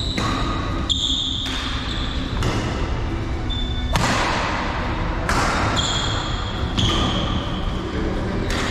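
Badminton rally: rackets strike the shuttlecock every second or two, the hardest an overhead hit about four seconds in that rings on in the hall. Players' shoes give short, high squeaks on the court floor.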